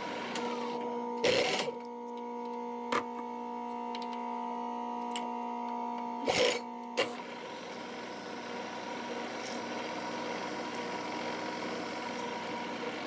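Machine spindle running at a steady pitch while drilling holes in the probe block, with a few short scraping bursts, the loudest about a second in and another about six and a half seconds in.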